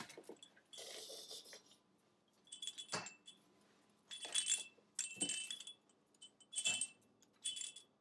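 Small bell inside a soft fabric cow rattle jingling in six or so short bursts as the toy is shaken, with a few sharp knocks among them.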